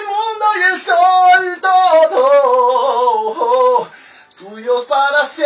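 A man singing a bachata melody solo into a studio microphone, in long held, gliding notes, with a short break about four seconds in.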